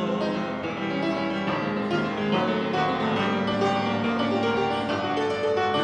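Piano playing an instrumental interlude between verses of a hymn, a run of chords and melody with no voices.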